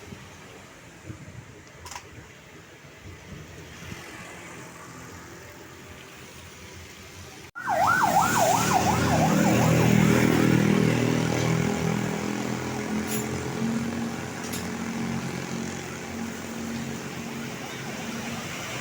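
Tourist bus's telolet horn sounding a fast warbling, up-and-down sweeping tone for about a second, breaking in suddenly about halfway through, followed by the bus's diesel engine running loudly as it passes. Before the horn there is only quieter road noise.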